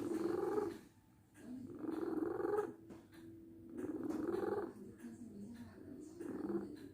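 A sleeping cat snoring: low rumbling breaths, four of them, each about a second long and about two seconds apart.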